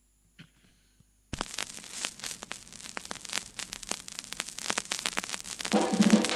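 Stylus crackling and popping in the lead-in groove of a 45 rpm vinyl record, a dense, uneven run of clicks that starts suddenly and slowly grows louder. The ska record's music comes in near the end.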